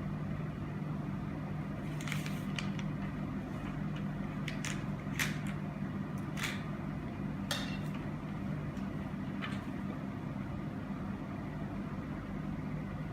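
Steady low hum of room background noise, with about nine short clicks and scrapes scattered through it.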